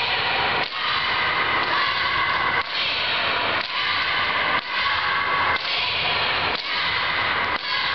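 Long skipping rope being turned, slapping the gym floor about once a second, over a steady dense din in the hall.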